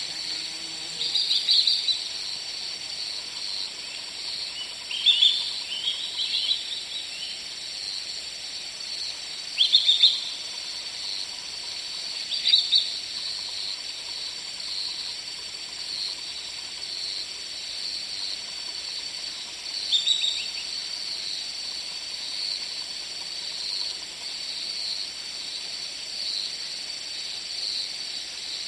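Forest ambience: a steady high-pitched insect drone and hiss, with short chirping bird calls breaking in every few seconds, about six times, the loudest about ten seconds in.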